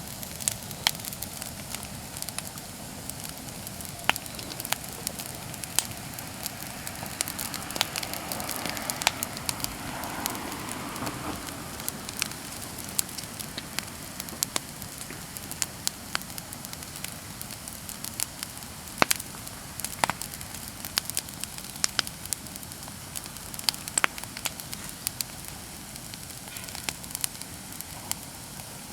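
Bonfire of cut persimmon-tree wood and leaves burning, crackling with frequent sharp pops over a steady hiss.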